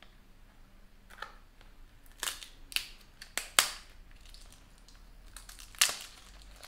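A small paperboard toner box being pried open by hand: a series of sharp crackles and snaps as fingernails work at its sealed end flap, the loudest about halfway through and again near the end.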